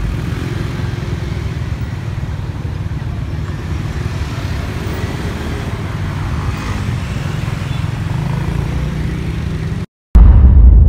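Street traffic: vehicle engines running steadily with a low rumble and road noise. About ten seconds in, the sound cuts out briefly, then a loud low boom hits as intro music begins.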